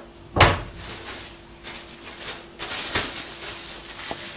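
A single thump about half a second in, then a thin plastic bag crinkling and rustling as a hand is worked into it.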